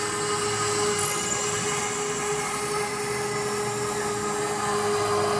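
CNC router spindle running at a steady high whine while the router bit cuts into a cherry wood board.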